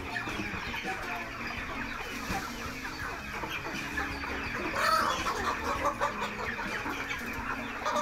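A flock of young white broiler chickens cheeping and clucking together, a dense, continuous chatter that swells briefly about five seconds in.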